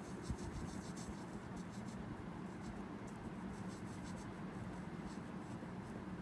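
Marker pen scribbling on paper as it colours in a small circle, quick scratchy strokes mostly in the first three seconds, over a low steady hum.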